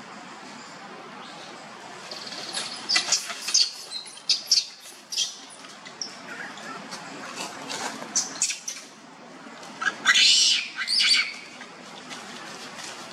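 Baby long-tailed macaque giving shrill distress squeals in short repeated bursts, loudest about ten seconds in.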